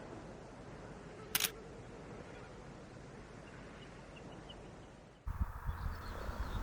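A single sharp camera-shutter click about a second and a half in, over faint background. Near the end the sound changes abruptly to a gusty low rumble on the microphone with faint bird calls.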